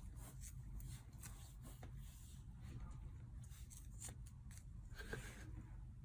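Faint room sound: a steady low hum with scattered light clicks and small rustles, and a slightly louder rustle about five seconds in.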